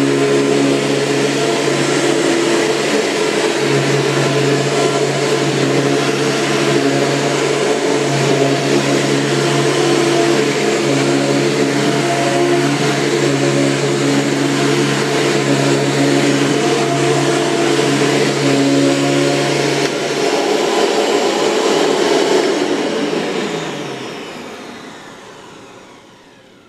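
Hoover Commercial Dual Purpose upright vacuum cleaner running steadily, a motor hum with a broad hiss of air, in good working order, sounding pretty good. Near the end it is switched off and the motor winds down and fades out.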